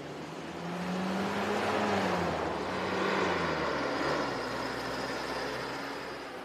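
Road traffic passing by: vehicle engines and tyre noise swell to a peak a couple of seconds in and then ease off, with one engine note rising and then falling as it goes past.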